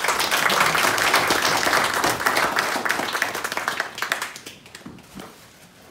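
An audience applauding: dense clapping that dies away about four to five seconds in.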